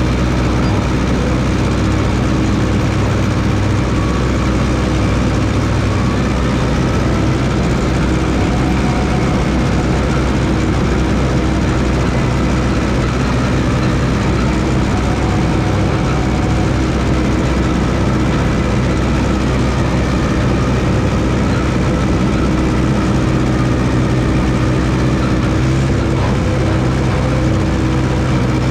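1969 Massey Ferguson 300 crawler dozer's engine running steadily at work.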